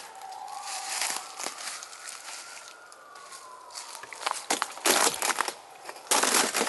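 Footsteps crunching through dry fallen leaves, loudest in a cluster near the end. Under them a faint distant siren slowly rises and falls.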